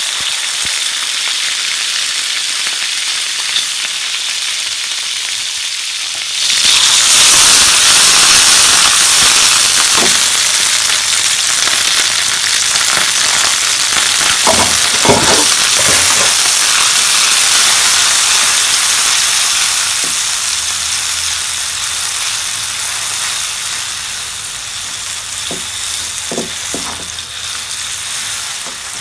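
Frozen chopped spring onions sizzling in hot oil in a wok, the sizzle turning louder about six seconds in. Later a ground garlic and red chili paste goes in and is stirred with a silicone spatula, with a few short knocks of the spatula against the wok.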